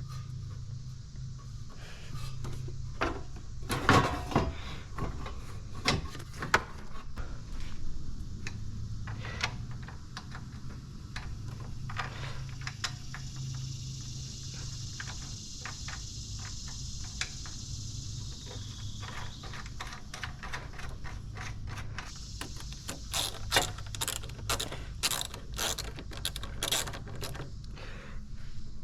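Hand tools at work on a car's intake: scattered clicks and knocks, and runs of quick ratchet clicks near the end, over a steady low hum.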